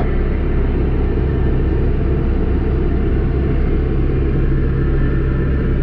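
Case 1090 tractor's diesel engine running at a steady field speed while pulling a Hardi sprayer: an even, unbroken low drone.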